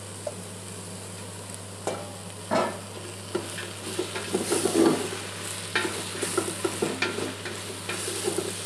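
Sliced portobello mushrooms sizzling gently as they are added to a stainless steel stockpot of onions sweating over medium-low heat, with a knock about two and a half seconds in. From about four seconds in they are stirred with a wooden spoon, scraping and knocking against the pot.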